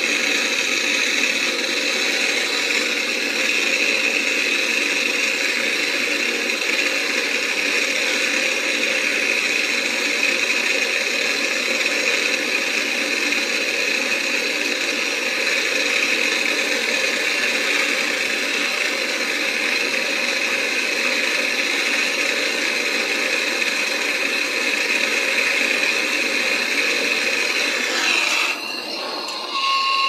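Hand-held gas torch burning with a steady hissing flame while it heats a copper pipe joint for soldering the fridge condenser to the compressor's discharge pipe. Near the end the flame sound drops in level and shifts in pitch as the torch is turned down.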